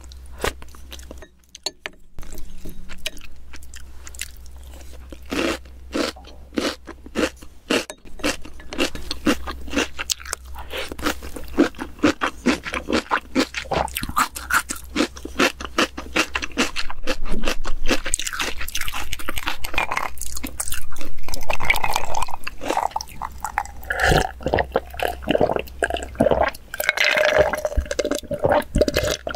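Close-miked eating sounds: chewing with crunches and many irregular wet mouth clicks. Near the end, gulps from a glass of iced cola.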